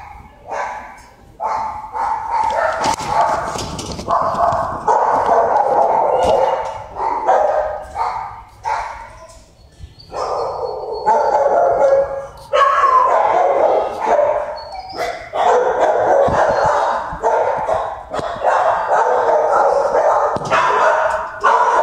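Dogs barking and yipping in a shelter kennel: a few separate barks at first, then nearly unbroken overlapping barking.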